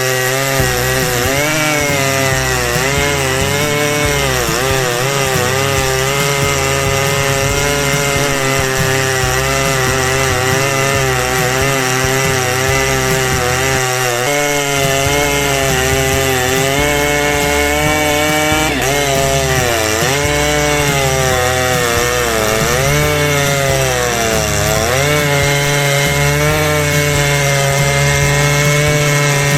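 Chainsaw engine running at high revs and cutting into wood. Its pitch sags repeatedly as the chain bites and bogs down, then climbs again as it frees up.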